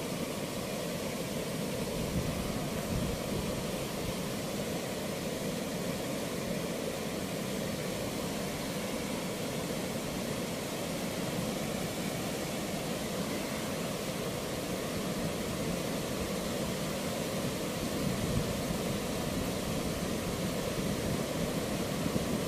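Steady rushing of river water pouring out through the open sluice gates of a barrage weir, a continuous even roar of turbulent water.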